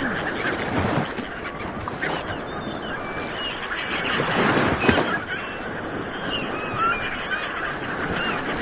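Ocean waves washing on the shore, one surging louder about halfway through, with many short bird calls over them, like a flock of honking waterbirds.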